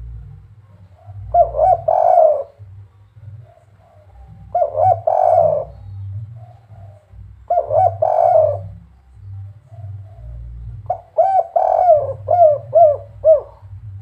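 Spotted dove (derkuku) of the 'kuk 3' song type cooing. Three short coo phrases come about three seconds apart, then near the end a longer phrase ends in a run of quick repeated notes, over a low background hum.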